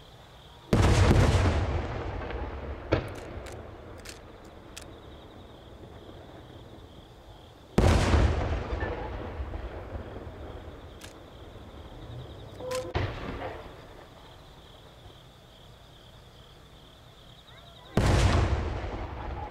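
Aerial firework shells bursting: three loud booms, about seven and ten seconds apart, each followed by a rumble that dies away over several seconds. A few small pops and crackles come in between.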